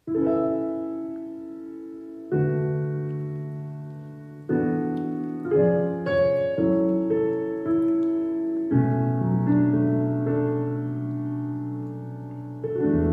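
Piano playing a slow introduction of struck chords left to ring and fade. There is a quicker run of notes in the middle, then a long held chord before a new chord near the end.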